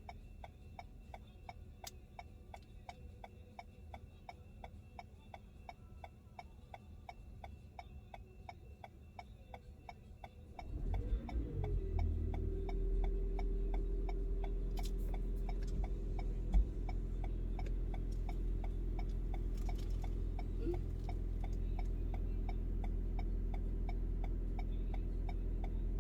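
A car's turn signal ticking steadily and rapidly inside the cabin while the car waits to turn left. About ten seconds in, a steady low rumble with a held hum starts beneath the ticking and stays.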